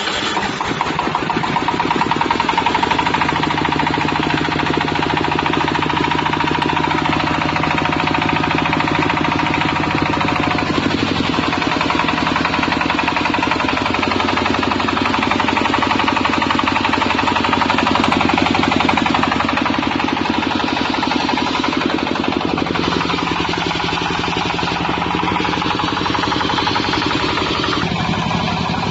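Portable water-well drilling rig's diesel engine running steadily under power with a fast, even knocking pulse, its pitch shifting a few times as the load changes.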